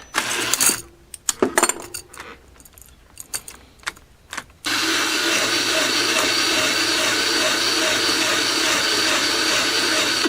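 A few scattered clicks and handling knocks, then about four and a half seconds in an electric drill starts and runs steadily at speed, boring out a rivet hole with a 3/16-inch bit; it stops abruptly at the end.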